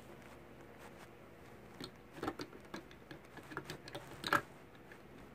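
Light clicks and taps of plastic Lego pieces being handled, scattered over a couple of seconds from about two seconds in, the loudest near the end.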